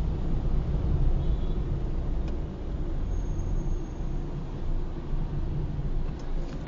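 Steady low rumble of a car driving, its road and engine noise heard from inside the cabin through a dashcam microphone.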